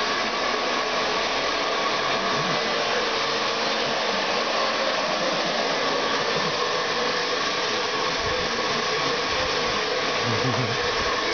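Handheld hair dryer running steadily, blowing air with a constant hiss and a faint motor whine.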